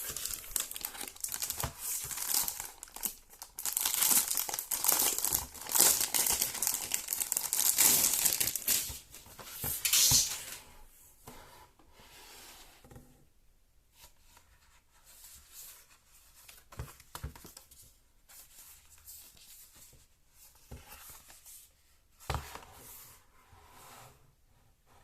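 Product packaging being unwrapped: paper and plastic crinkling and tearing, loud and dense for about the first ten seconds, then quieter scattered rustles and a few sharp clicks.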